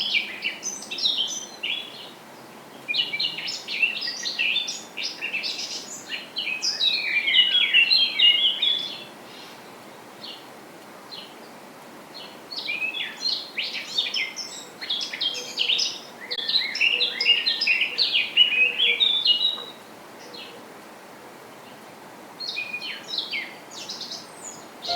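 A songbird singing long, rapid warbling phrases, four of them with short pauses between, over a steady background hiss.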